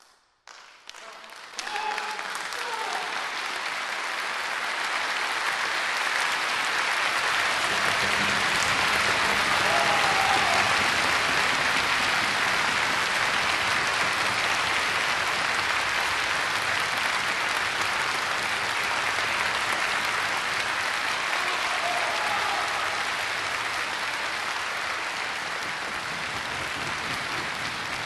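Concert-hall audience applauding. Scattered claps start about half a second in and swell within a second into full, dense applause, which holds steady and eases off a little toward the end.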